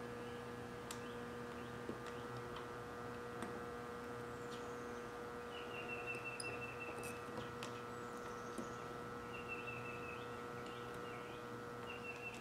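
Electric soldering gun humming steadily while its tip heats a wire on a speed-controller solder post, with a few faint clicks. Short high chirping trills recur every few seconds in the background.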